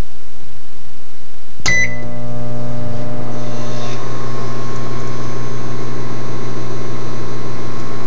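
Microwave oven running: a steady hiss, then a sharp click about two seconds in, after which a loud, steady electrical hum sets in and holds.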